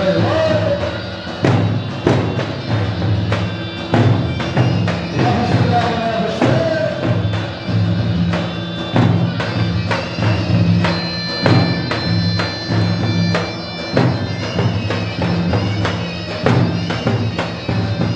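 Dance music with a regular drum beat, a bass line and a melody running over them.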